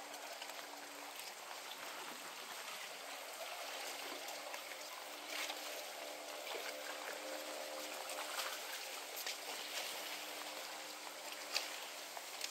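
Lagoon water gently lapping and trickling beneath an overwater wooden walkway, under a faint steady hum. A few short knocks of footfalls sound on the boards, the sharpest near the end.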